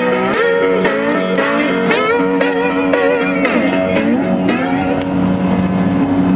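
Solo guitar playing blues, picked notes over a held low note, with several notes bent up and down in pitch.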